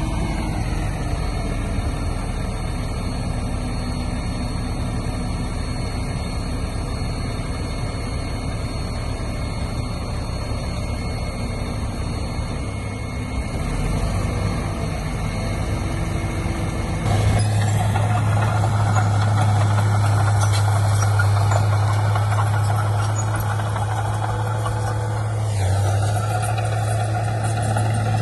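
Heavy diesel earthmoving machinery running steadily; about two-thirds of the way through the sound turns abruptly louder with a strong, deep engine drone. Near the end a whine drops in pitch.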